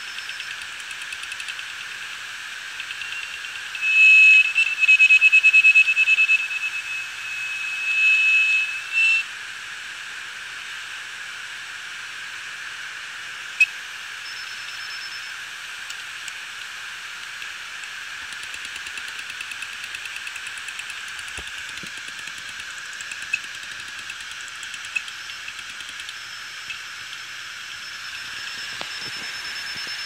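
Seagate Barracuda 7200.11 hard drive running with its cover removed, platters spinning with a steady whine. From about 4 to 9 seconds it gives a loud, high-pitched pulsing squeal, and there is a single sharp click a few seconds later. The drive is already dead from the SD15 firmware fault.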